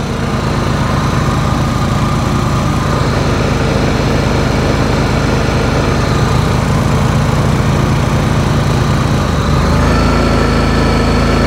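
Honda inverter generators running steadily. About ten seconds in, the engine note steps up and holds higher as the Honda EU7000 takes over the whole load, about 4,000 to 5,600 watts, once the small Honda 2000 W unit is shut off.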